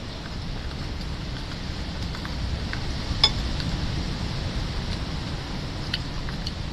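Small clicks of a metal spoon against sea urchin shells as the urchins are scooped out, with one sharp clink a little over three seconds in. A steady low rumble lies underneath.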